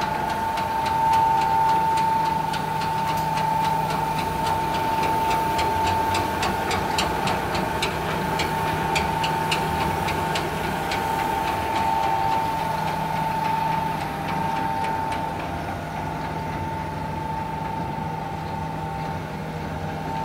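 Toilet-tissue slitter-rewinder running: a steady high whine over a low hum, with a regular ticking at about two a second through the middle stretch.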